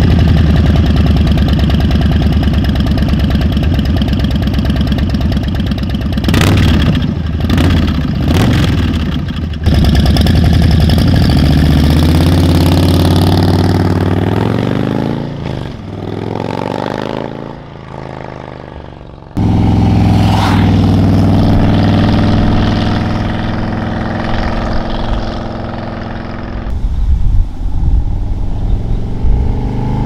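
Harley-Davidson Milwaukee-Eight 117 V-twin running through S&S slash-cut slip-on mufflers. It idles with a few sharp throttle blips, then the bike rides away with the engine note falling and fading. After an abrupt cut it pulls away again, fades, and swells back as it comes in for a drive-by.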